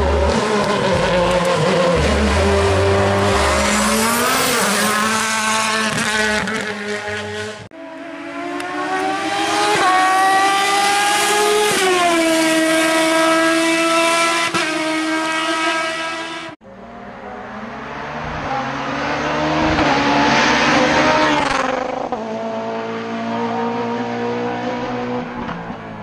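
Racing car engines accelerating hard, revving up through the gears, each climb in pitch dropping back at a gear change. The sound comes in three passes of different cars, joined by abrupt cuts.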